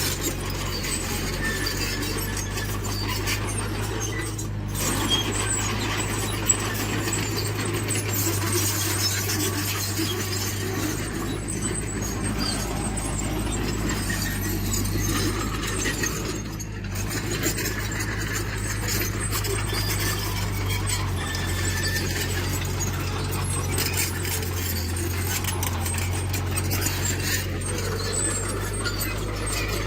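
Diesel engine of a tracked earthmoving machine running steadily, with metal squealing and scraping over it.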